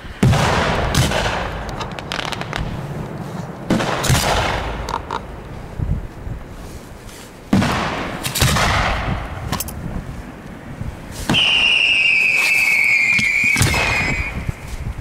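Aerial firework shells bursting: three loud bangs about three to four seconds apart, each trailing off in a hiss. Later comes a high whistling firework lasting about three seconds and dropping slightly in pitch, with another bang near its end.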